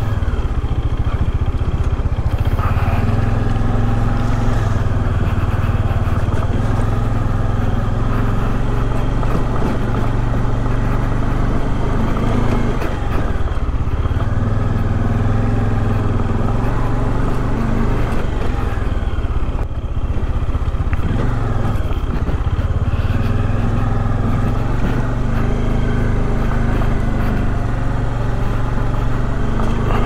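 Bajaj Dominar 400's single-cylinder engine running steadily as the motorcycle rides along. The engine note dips and picks back up twice, a little before halfway and again about two-thirds of the way through.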